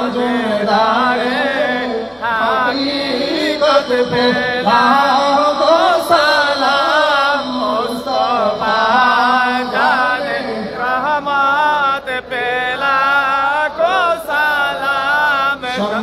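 Men chanting a devotional Urdu salam to the Prophet through microphones: a slow melodic line with long, wavering held notes and ornamented turns.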